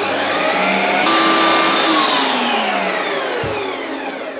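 Ninja Creami ice cream maker running its Smoothie Bowl programme, its motor and spinning blade whirring as they work through a frozen pint of smoothie-bowl mix. The whine jumps louder about a second in, then its pitch slowly falls.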